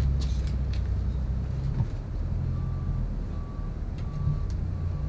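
A heavy vehicle's engine rumbling, with a reversing alarm beeping steadily from about halfway through. A few light knocks come early on.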